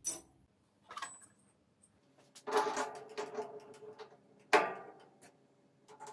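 Steel tooling being handled at a metal lathe: light metallic clicks, a rattling clink of metal on metal about two and a half seconds in, and a sharp clank with a brief ring about four and a half seconds in.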